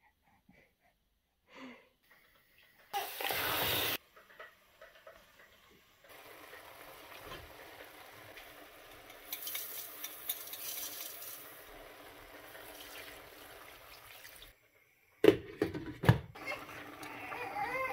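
A short burst of noise about three seconds in, then vegetables cooking in a stainless steel pot with a soft steady sizzle, and a metal spoon stirring and knocking against the pot near the end.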